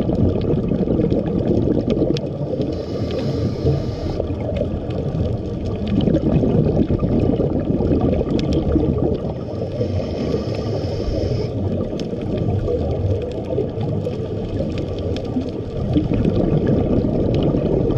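Underwater sound picked up by a diver's camera: a steady muffled water rush with scattered sharp clicks. Twice, a few seconds in and again about ten seconds in, a brief hiss is heard, typical of a scuba regulator as the diver breathes in.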